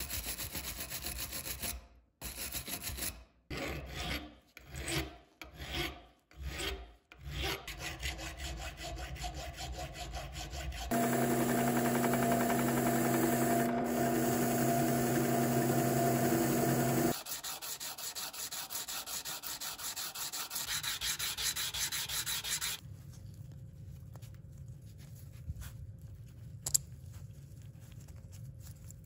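Abrasive rubbing in hand strokes, from sanding or filing parts of an old carpenter's brace: a few separate strokes, then steady rubbing. In the middle, a louder steady hum with a held pitch runs for about six seconds and stops abruptly.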